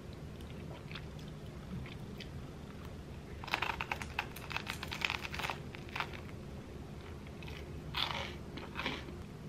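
Crunching and chewing of a pretzel-roll egg sandwich, close to the microphone. A dense run of crisp crunches comes a few seconds in, then two shorter crunches near the end.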